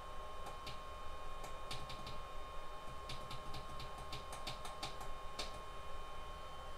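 Push buttons on the control panel of a T-8280 infrared preheating plate being clicked over and over to step the temperature setting, in irregular runs of quick clicks. A steady faint high tone runs underneath.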